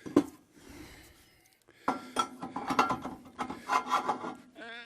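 A sharp knock, then from about two seconds in a run of scraping and rubbing as a jack pine log is worked onto the sawmill, wood grinding against the stops and bed.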